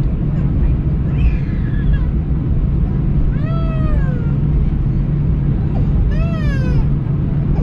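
Steady low drone of an Airbus A319 cabin, with two short high wailing cries, each rising then falling, about three and six seconds in.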